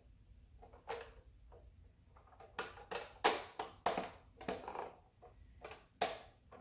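Hard plastic clicks and knocks, about ten of them, densest in the middle, as a snap-on colour filter is pressed and fitted around the rim of an 18-inch LED ring light.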